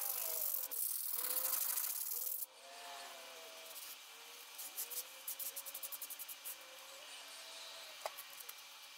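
Sandpaper rubbed by hand over the pitted steel of a 1970s Mastercraft axe head, a rough scratching that stops suddenly about two and a half seconds in. Quieter rubbing follows as the head is wiped with a cloth, with a quick run of light scratches partway through.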